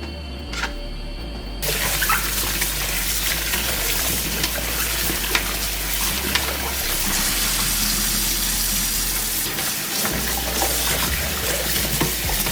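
Kitchen tap running into a bowl as cut potatoes are rinsed, the water starting about a second and a half in, with occasional light knocks.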